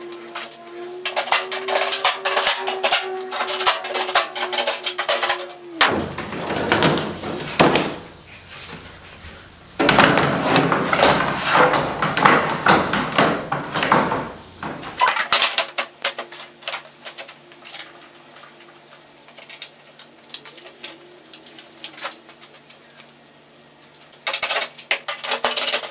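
Hand-tool work on a pickup tailgate: repeated small metal clicks and clinks as Torx screws are refitted, over a steady low hum, with two long spells of loud scraping and rustling, one about six seconds in and one from about ten to fifteen seconds.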